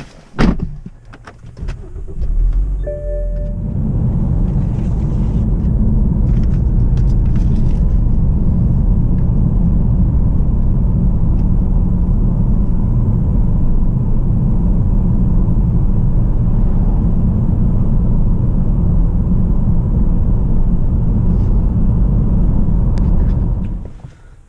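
A thump and jangling of keys, then a short tone. Then steady, loud road and engine rumble inside a BMW's cabin as it drives, cutting off suddenly near the end.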